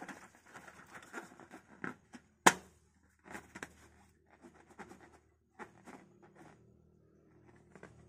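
Hands squeezing and rubbing a small filled latex balloon: irregular rubbery squeaks, crackles and rustles, with one sharp snap about two and a half seconds in. The handling grows fainter and sparser in the second half.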